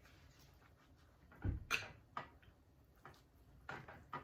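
A fork clicking and tapping against a bowl while eating: a handful of short, sharp clicks, the loudest two about one and a half to two seconds in, the first with a dull knock.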